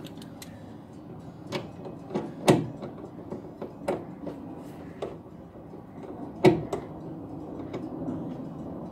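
Irregular clicks and knocks of a nut driver being worked at the roof rail of an Opel GT while screwing in a headliner's rod-retaining wire, mixed with hand and fabric handling. Two knocks stand out as the loudest, one about two and a half seconds in and one about six and a half seconds in.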